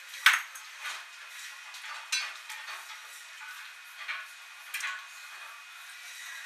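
Knife knocking and clinking against a cutting board on a stainless-steel table as frogs are cut up: about five sharp, irregular hits, the first the loudest, some with a short metallic ring.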